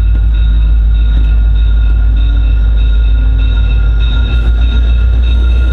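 A passenger train running: a loud, steady low rumble with thin, steady high-pitched tones above it.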